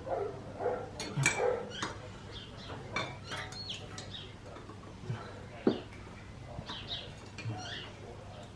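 A few sharp knocks and clinks, with birds chirping in the background.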